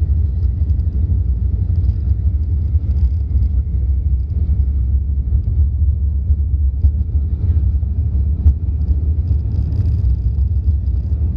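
Cabin noise of an Airbus A380-800 at takeoff thrust: a steady deep rumble from its four Engine Alliance GP7270 turbofans and the airflow, heard from inside the cabin.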